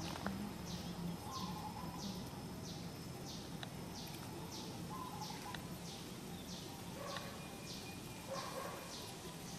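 A bird calling over and over, a short high note falling in pitch about twice a second, with a few fainter lower chirps in between.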